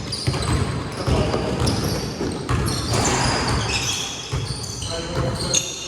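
Basketball play on a court: a ball bouncing with repeated low thuds, mixed with short high squeaks.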